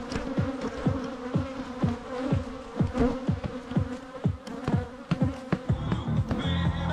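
Honey bees buzzing close past the microphone, one after another, each buzz falling quickly in pitch as a bee flies by, a couple of passes every second, around a hive that is opened up.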